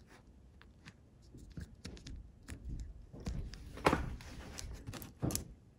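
Small plastic and metal parts of a model locomotive's pancake motor being handled and pulled apart: a scatter of light clicks and rubs, with two sharper knocks about four and five seconds in.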